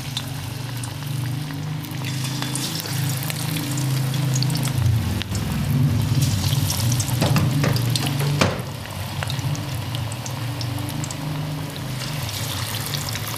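Battered chicken pakora pieces frying in hot ghee, a steady sizzle and bubbling with a few sharp crackles as more pieces go in, over a low steady hum.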